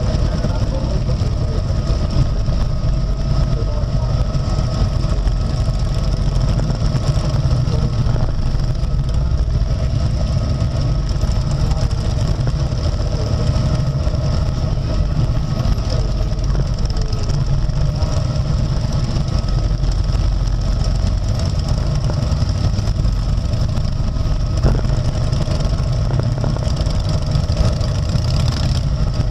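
Harley-Davidson Road King's V-twin and a pack of motorcycles around it idling and creeping forward at walking pace: a steady low engine rumble.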